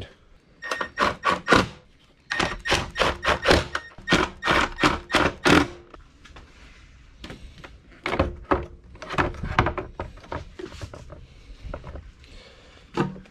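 A car battery being handled and set into its tray in the engine bay: bursts of knocks and clunks, with a quick run of them from about two to six seconds in.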